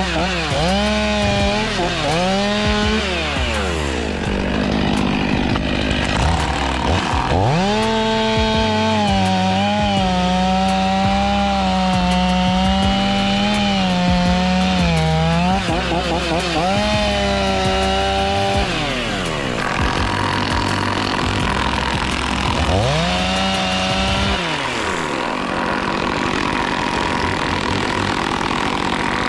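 Stihl MS500i fuel-injected two-stroke chainsaw revving up to full speed and dropping back several times. Its pitch wavers while it is held high for several seconds, as when it is working through wood, and in between it falls to a low run.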